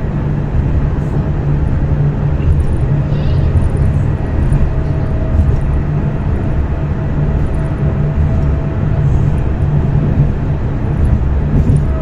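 Stadler B85600M tram running along the line: a steady low rumble of wheels and running gear, with a faint motor whine that drifts slightly lower in pitch.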